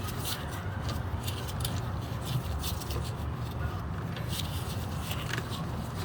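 Scattered light metallic clicks and scrapes as a rear brake caliper and its bolts are worked into line, over a steady low background hum.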